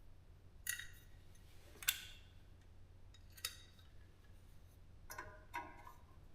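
Small metal parts clinking as they are handled: about five short clicks and clinks, some with a brief metallic ring, the sharpest about two seconds in.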